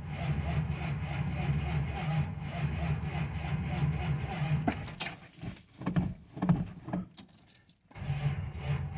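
Starter cranking a cold Chrysler 440 V8 on a weak battery with a bad cell, a steady pulsing churn. About halfway through the cranking breaks off into a few seconds of sharp clicks, then starts again near the end.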